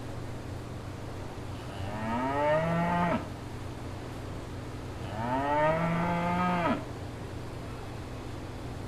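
A cow mooing twice, two drawn-out calls a few seconds apart, the second longer, each rising and then falling in pitch.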